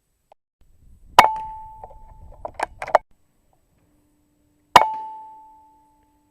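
Two air rifle shots about three and a half seconds apart, each a sharp crack followed by a brief metallic ring. Between them comes a short run of quick clicks, as when the rifle is cycled for the next pellet.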